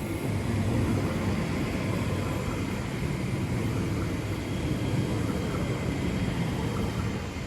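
A train moving through the station: a steady, low rumble.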